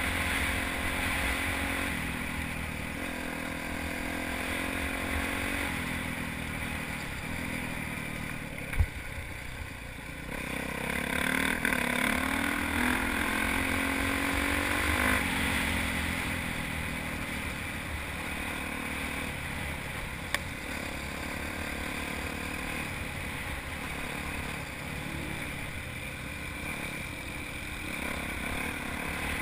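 Dirt bike engine under way with the pitch stepping up and down through the gears. It climbs under acceleration about a third of the way in and drops sharply at a gear change about halfway. Heavy wind rumble on the helmet-mounted microphone, and one sharp knock a little before a third of the way in.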